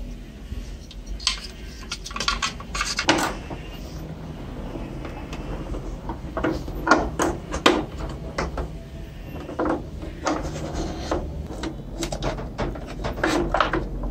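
Hard plastic parts of a CRT monitor's swivel base clicking and knocking as they are handled and fitted together, in irregular taps.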